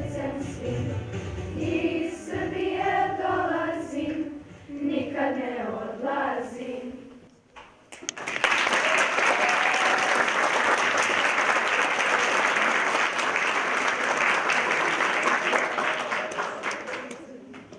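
A school choir singing, finishing a song about seven seconds in; after a brief pause an audience applauds steadily, the clapping fading near the end.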